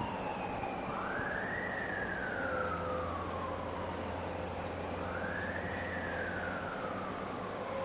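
Emergency vehicle siren wailing in two slow cycles, each rising quickly and then falling away over about three seconds, over a steady low background hum.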